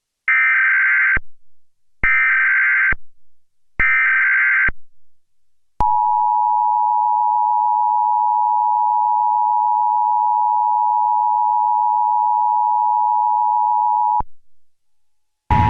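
Emergency Alert System tones. First come three short, screechy SAME data header bursts about a second apart. Then the steady two-tone attention signal holds for about eight seconds and cuts off suddenly.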